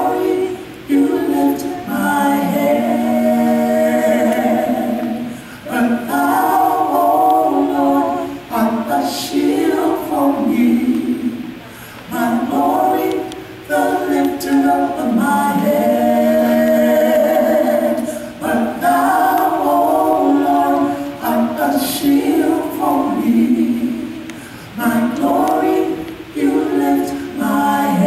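Gospel vocal trio, a man and two women, singing together into microphones in long phrases with short breaks between them.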